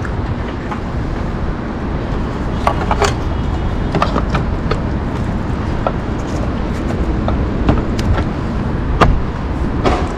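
Scattered clicks and knocks of plastic parts being handled as a car tail light and the boot trim are fitted, the sharpest knock about nine seconds in, over a steady low rumble.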